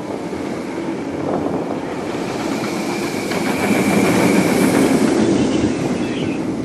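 VelociCoaster's Intamin steel roller coaster train rushing past on its track close by: a rumbling noise that builds to its loudest about four to five seconds in, with a thin high whine partway through.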